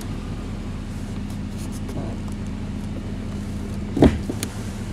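Truck engine and drivetrain running steadily with the wheels spinning free, then about four seconds in a single loud clunk as the NP241-C transfer case shift lever is pulled and the case shifts into four-wheel drive.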